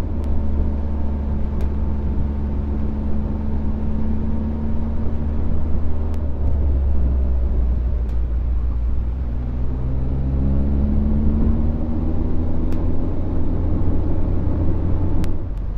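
Motorcycle engine running at road speed under a steady rush of riding wind. The engine note drops as the bike slows about six seconds in, then rises again as it accelerates back up to speed.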